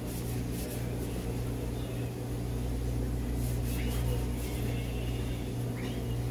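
A steady low machine hum, with a few faint soft strokes of a knife slicing raw beef on a plastic cutting board.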